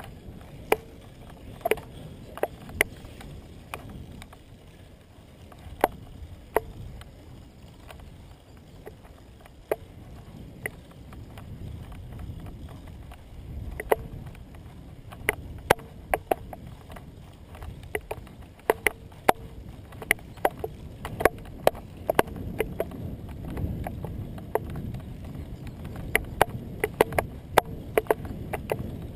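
Road bicycle riding at speed, heard from a camera clamped to its handlebar: a steady low rumble of wind and tyres on asphalt, with irregular sharp clicks and knocks from the bike and camera mount jolting, more frequent in the second half.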